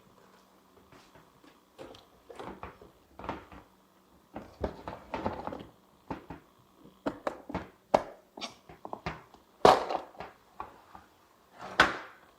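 Small plastic toys and their packaging being handled: an irregular string of clicks, knocks and rustles, with the loudest rustles about ten and twelve seconds in.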